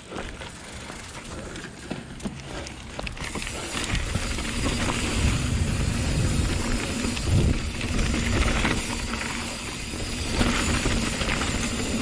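Ragley Big Al hardtail mountain bike rolling fast down a dirt and gravel trail: tyre noise and wind, with the frame and chain rattling over bumps. It gets louder from about four seconds in as speed builds.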